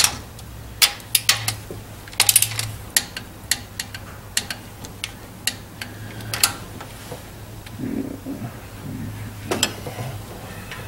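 Torque wrench ratcheting and clicking as the cylinder head bolts of a Vortec 5.7 small-block V8 are run down to 22 foot-pounds: irregular sharp metallic clicks and clinks, with a steady low hum underneath.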